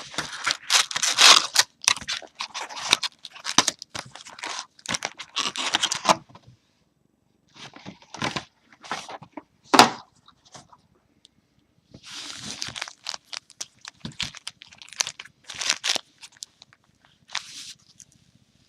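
Plastic shrink-wrap being torn and crinkled off a sealed box of trading cards, with the cardboard box being handled, in irregular rustling bursts. There is a short pause partway through and one sharp snap about halfway.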